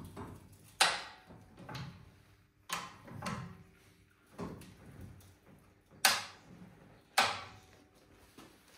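High-lift jack being pumped to raise a heavy truck: a sharp clack with each stroke of the handle as the jack climbs its notched bar, about seven in all at uneven intervals of roughly a second. The clacks about a second in and near the end are the loudest.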